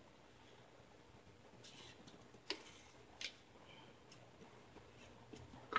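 Faint ticks and scratches of a razor blade cutting through foam core board, with two sharper clicks about two and a half and three seconds in and a quick run of clicks at the end.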